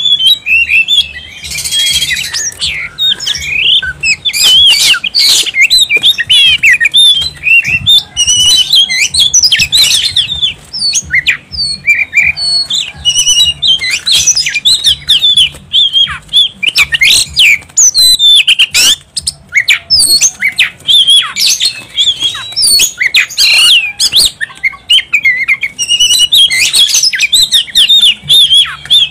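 Oriental magpie-robin singing a loud, fast, varied song of whistled notes, trills and harsh chattering, almost without pause.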